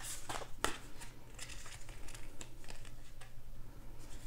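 A deck of oracle cards being shuffled by hand: a run of soft slaps and slides of card against card, loudest in the first second.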